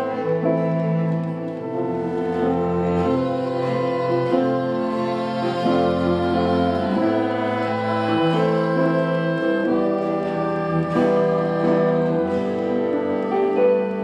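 A small chamber-folk ensemble of acoustic guitar, clarinets, violin, cello and keyboards playing an instrumental passage of slow, held chords that change every second or two.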